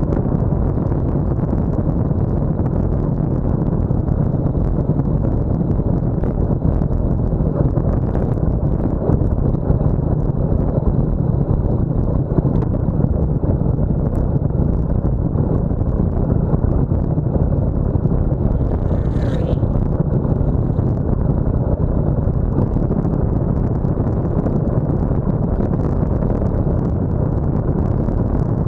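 Steady wind rumble on a road bike's handlebar-mounted camera microphone while riding fast downhill, mixed with tyre noise on the tarmac. A brief high-pitched sound cuts in about two-thirds of the way through.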